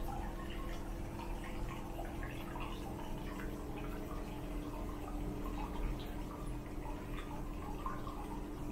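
Hot spring water trickling and dripping into a glazed ceramic pot bath, many small irregular drips over a steady low hum.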